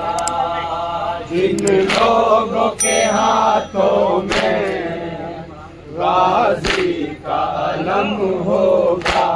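A group of men chanting a Muharram nauha (lament) loudly in unison. Sharp slaps at a slow, regular beat about every two and a half seconds keep time with the chant: matam, hands striking chests.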